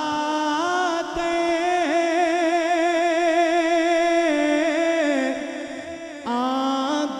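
A man's voice singing an Urdu naat into a microphone, holding one long wavering note for several seconds. The singing drops softer around five seconds in before he starts the next phrase near the end.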